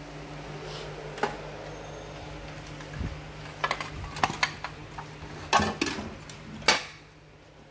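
Sheet-metal chassis and circuit boards of a disassembled Sony LBT-ZUX10D home theatre unit being handled: a string of metallic clanks and knocks, the loudest about six and a half seconds in, over a steady low hum.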